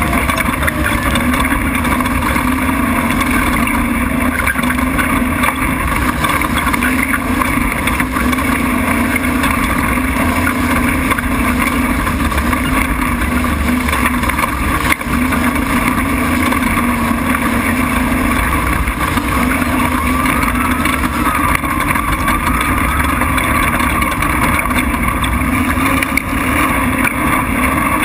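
Off-road prerunner race truck's engine running hard at a steady pace on a desert dirt track, mixed with rumbling road noise and wind, picked up by a camera mounted on the truck's hood.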